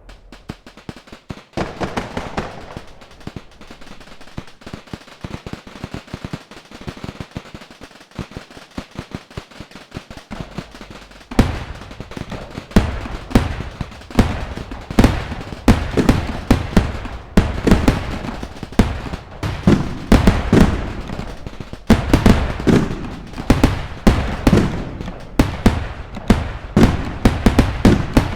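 Fireworks going off in rapid succession, a dense run of crackling pops and bangs. About eleven seconds in it turns louder and heavier, with booming reports following one another several times a second.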